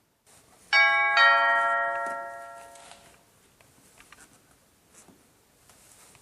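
Two-note ding-dong chime of a doorbell: two bell-like tones about half a second apart, ringing out and fading over about two seconds. Faint small clicks follow.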